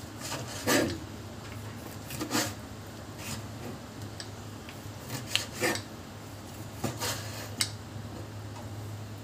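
Meat cleaver chopping goat tripe on a cutting board: irregular knocks of the blade through the meat onto the board, about eight in all, with a steady low hum underneath.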